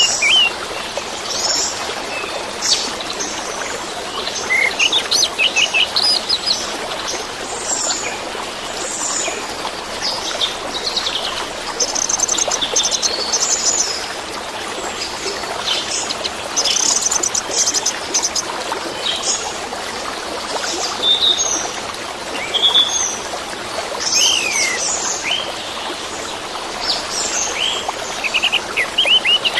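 Orange-headed thrush (anis merah) singing a string of varied, quick chirping phrases over a steady rush of running water.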